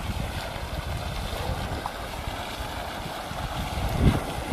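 Water gushing steadily from the open end of a borewell delivery pipe, pumped by a freshly started 30 hp submersible pump that is giving a strong flow. Wind rumbles on the microphone, with a heavier buffet near the end.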